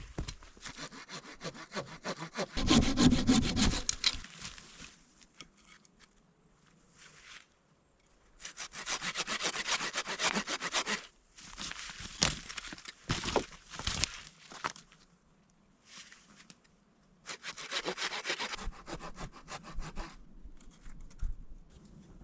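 Hand saw cutting through wood in several bouts of quick back-and-forth strokes, with short pauses between the bouts.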